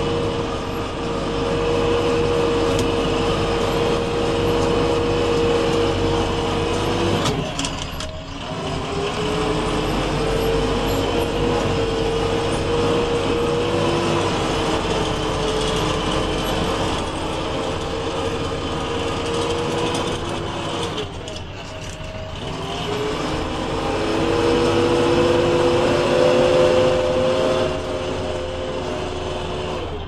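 JCB 3DX backhoe loader's diesel engine running while the machine drives, heard from inside the cab. The engine note drops away twice, about eight seconds in and again past twenty seconds, then climbs back up.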